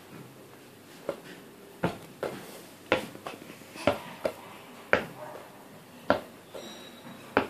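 Hands slapping and batting a plastic ball back and forth: about nine sharp, irregular slaps and taps. A brief faint high squeak comes near the end.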